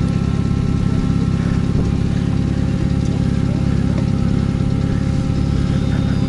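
Car engine idling steadily, an even low rumble with a fast regular pulse.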